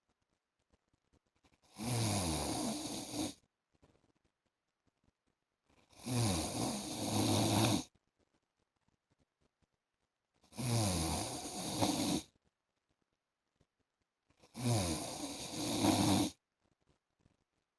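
A man snoring in his sleep: four long snores about four seconds apart, each lasting a second and a half to two seconds, with near silence between them.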